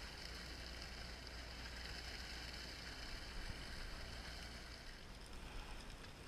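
Sportfishing boat's engine running with a steady low hum under an even rush of sea water along the hull.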